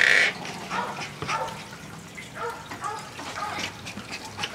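A Chihuahua giving several short, faint yips and whines, after a brief loud sound right at the start.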